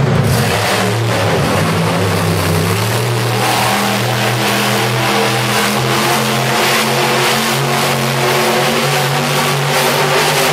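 Monster truck engine revving hard as the truck spins in the dirt, a loud steady engine note that climbs in pitch over the first few seconds and then holds at high revs.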